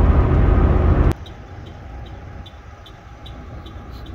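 Loud road and engine rumble of a car at highway speed, heard from inside the car, cutting off sharply about a second in. After it comes a much quieter low hum with faint, evenly spaced high chirps, about two or three a second.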